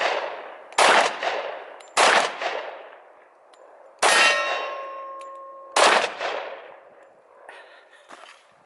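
Four shots from a Glock 20 10mm pistol, one to two seconds apart, each trailing off in a decaying echo. After the third shot a ringing tone hangs on for nearly two seconds, until the fourth.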